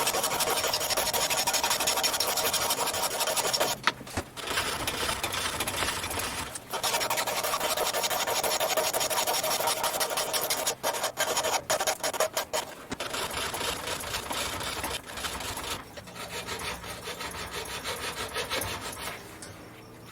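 Hand file working the edges of metal clamp plates in steady rasping strokes, with a few brief pauses. It gets quieter in the last few seconds and stops just before the end.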